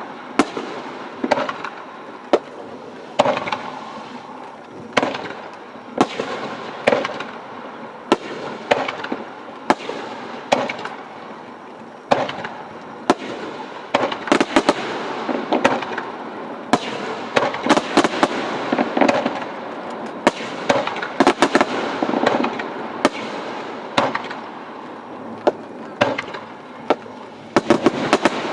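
Aerial fireworks shells bursting in a steady series of sharp bangs, about one a second, with crackling between them; the bangs come thick and fast in a dense volley through the middle and again near the end.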